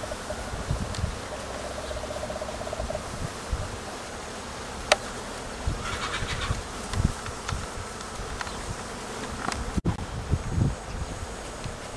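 A flying insect buzzing, a wavering hum that stops about three seconds in. Low bumps and a few sharp clicks follow.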